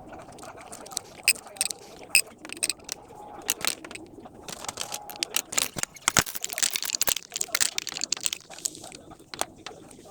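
Irregular sharp clicks, knocks and crackles of a phone holder being handled and adjusted, thickest in a rapid run about six to eight seconds in.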